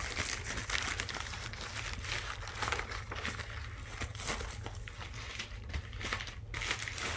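Plastic mailer package crinkling and rustling in irregular crackles as it is handled and opened by hand.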